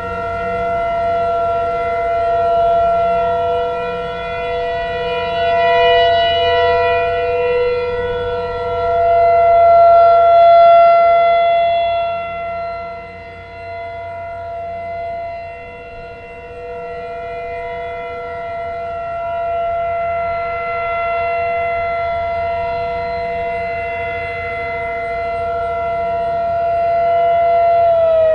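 Outdoor warning sirens sounding together during a steady-tone test, a chord of several held pitches that swells and fades in loudness every few seconds. Right at the end the pitch starts to fall as one siren begins winding down.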